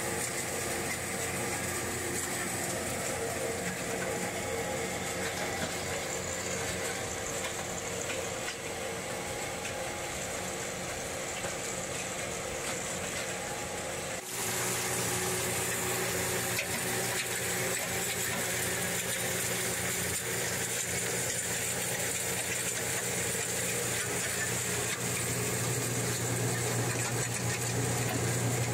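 Small gold ore milling plant running with a steady machinery hum. About halfway through, the sound changes abruptly to a louder, lower hum.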